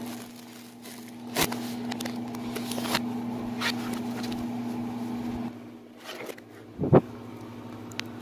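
Microwave oven running with a steady hum, with a few sharp pops from the popcorn bag inside, played in reverse. The hum stops about five and a half seconds in, and a loud click of the door latch follows about a second later.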